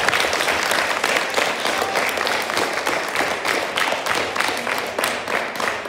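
Audience applauding, a dense patter of many hands clapping that eases off toward the end.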